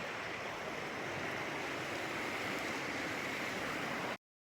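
Steady rushing water making a continuous even hiss, which cuts off suddenly near the end.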